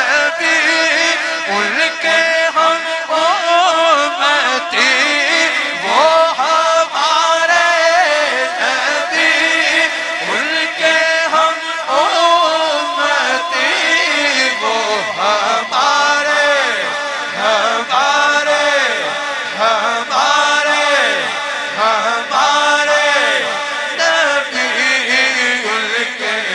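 Devotional chanting in a Middle Eastern style: one voice sings long, ornamented, gliding lines over a steady, held drone.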